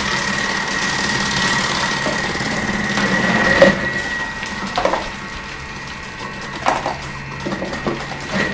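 Thermomix TM6 motor spinning the Cutter attachment's slicing disc with a steady whine while cabbage wedges are pressed through the feeder tube and sliced thick. The cutting noise drops away about four seconds in, leaving the motor whine with a few knocks from the pusher and feeder tube.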